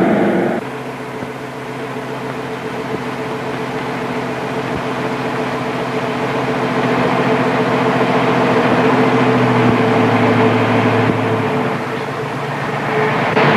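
Car engine running steadily while driving, a constant low hum whose pitch shifts slightly toward the end.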